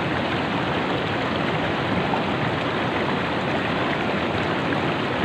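Shallow river water running steadily over boulders and stones.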